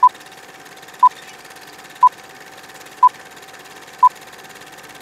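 Film-leader countdown sound effect: a short, loud, high beep once a second, five times, over a faint steady hiss.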